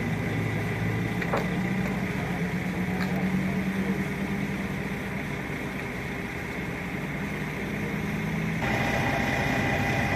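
A heavy engine running steadily with a low hum, a faint click now and then; near the end the low hum gives way to a higher, steady whine.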